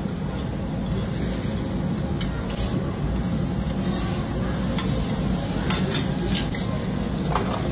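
Beef sizzling on a steel teppanyaki griddle, with a spatula and knife scraping and clicking against the hot plate several times over a steady low hum.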